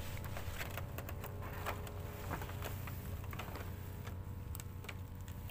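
Scattered, irregular light clicks and ticks over a low steady hum.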